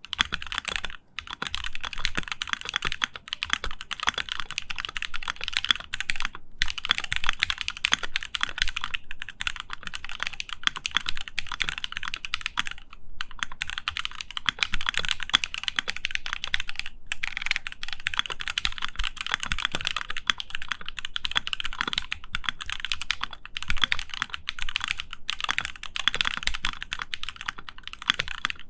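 Fast, continuous typing on a custom mechanical keyboard with lubed and filmed Gateron Ink Black linear switches in a Hex 3c case, a dense stream of keystrokes broken by a few brief pauses.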